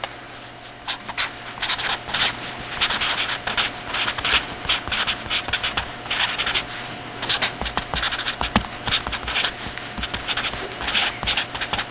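A pen writing in quick, scratchy strokes, in clusters with short pauses between words. A faint steady hum runs underneath.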